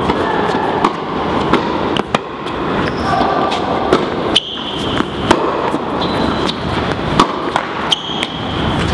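Indoor tennis rally: a tennis ball is struck by rackets and bounces on the court in sharp cracks at irregular intervals. Short high shoe squeaks come in between, over the steady background noise of a large hall.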